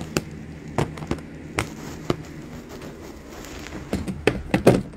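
Irregular clicks and knocks from objects being handled close to a phone's microphone, with a cluster of louder knocks near the end, over a steady low hum.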